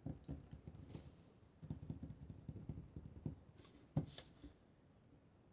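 Faint, irregular tapping of someone typing, with one sharper knock about four seconds in.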